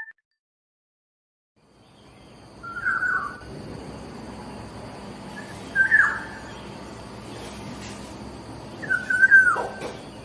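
A bird calling three times, short loud calls about three seconds apart, the last one dropping sharply in pitch, over a steady background hiss. The sound starts after about two seconds of silence.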